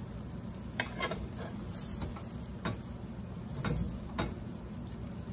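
Metal spoon stirring thick rice and chicken in an aluminium pan, with a handful of sharp clicks as it knocks and scrapes against the pan's sides, over a faint steady sizzle of the pan simmering.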